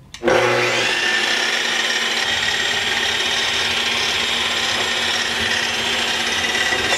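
Makita miter saw switched on about a quarter of a second in, its motor and blade coming up to speed and then running steadily at full speed with a high whine.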